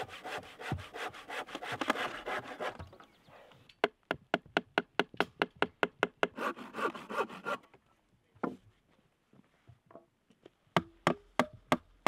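Handsaw cutting through a wooden plank in quick strokes, then a steady run of sharp hammer knocks on the planks; after a short pause, more single hammer blows near the end.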